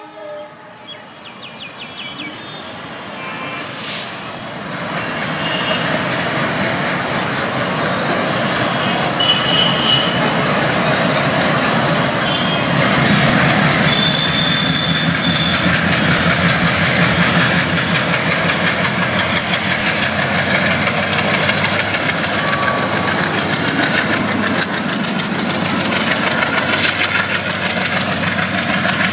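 Indian Railways ALCO diesel locomotives (WDM-3A class) chugging as they pull a passenger train away under power, the engine noise building over the first several seconds and then holding steady, with wheels clattering over the rails. A horn note is just dying away at the very start.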